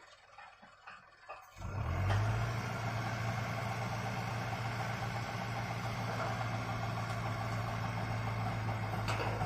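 Heavy construction-vehicle engine running steadily with a strong low hum, coming in suddenly about a second and a half in after near quiet.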